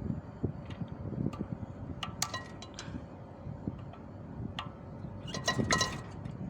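Light metallic clinks and taps that ring briefly, in two clusters about two seconds in and about five and a half seconds in, as metal parts and tools are handled on the AC compressor, over a low steady rumble.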